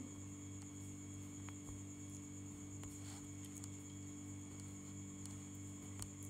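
Faint steady electrical mains hum with a thin high whine above it, with a few faint ticks scattered through it.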